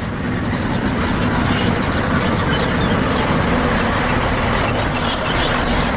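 A truck engine running steadily, with a low hum under a dense rumble, cutting off abruptly at the end.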